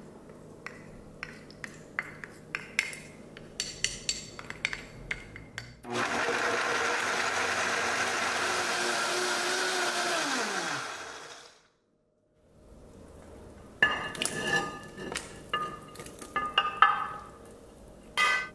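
Light taps and clinks of a spatula scraping chili paste from a small glass bowl into a blender jar. Then a high-powered blender runs for about five seconds, puréeing the sauce, and winds down with a falling whine. After a short break, a wooden spoon knocks and clinks against an enamelled pot as soup is stirred.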